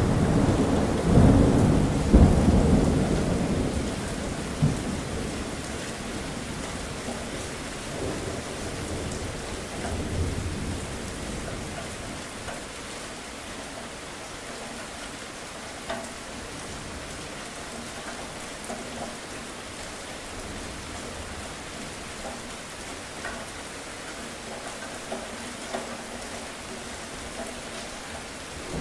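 Steady rain with a rolling thunderclap in the first few seconds that fades out over several seconds. A fainter rumble of thunder comes about ten seconds in, and another roll of thunder begins right at the end.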